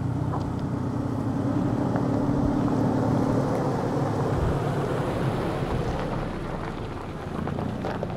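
Toyota Tacoma pickup's engine pulling under load as the truck drives slowly past towing a car on a strap. The engine note is loudest a few seconds in and eases off as the truck moves away.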